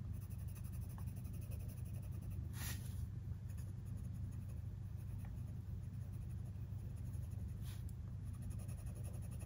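Coloured pencil scratching on paper as a shape is coloured in with firm pressure, with two brief louder strokes about two and a half and seven and a half seconds in. A steady low hum lies underneath.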